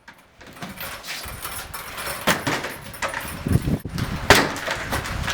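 A door being forced: several heavy thuds against it, with metal rattling that fits a door chain.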